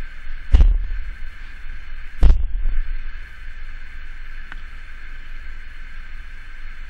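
Two loud thuds about two seconds apart over a steady hiss and hum, then a faint click.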